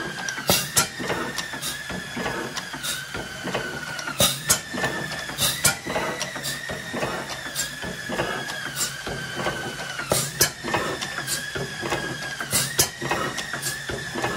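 Blackstone hit-and-miss hot-bulb oil engine running, its valve gear and governor clicking and clattering in a repeating rhythm over a thin whine that rises and falls about once a second.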